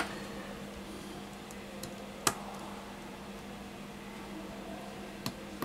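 A few small sharp clicks and taps as hands handle the opened tablet's plastic frame and connectors, the loudest about two seconds in and another near the end, over a steady low hum.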